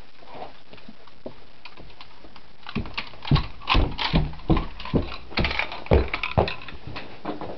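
Footsteps, about two a second, starting about three seconds in and stopping shortly before the end, with rustle from the camera being carried.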